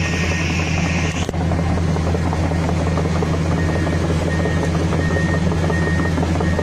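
Heavy-equipment diesel engine, from a bulldozer or excavator, running steadily with a deep drone. A high hiss cuts off suddenly about a second in, and a faint high beep repeats through the rest.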